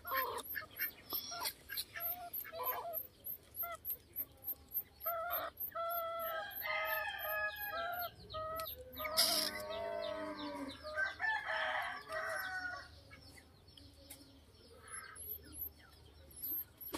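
Chickens clucking with short repeated calls, then a rooster crowing once in a long call about nine seconds in.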